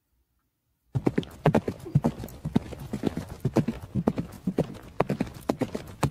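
Horse hooves clip-clopping at about three to four hoofbeats a second, starting suddenly about a second in after silence.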